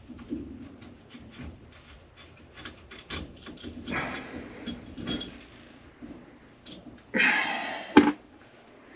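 Small clicks and rustling of hands working on wire connections. Near the end there is a louder scraping rustle, ending in one sharp knock.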